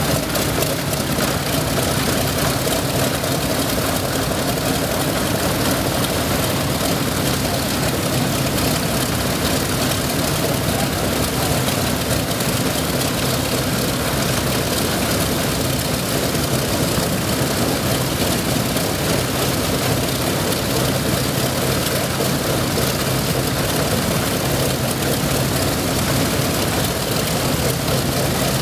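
Pratt & Whitney R-1830 Twin Wasp radial engines of a B-24 Liberator bomber running steadily at low power during a ground run-up, a heavy, even drone.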